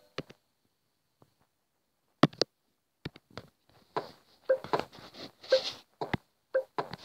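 A few sharp clicks, then short wailing cries repeating about twice a second from about four seconds in.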